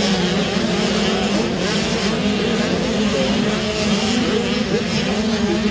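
Several motocross bike engines running together at race speed, their pitches overlapping and rising and falling as the riders work the throttles.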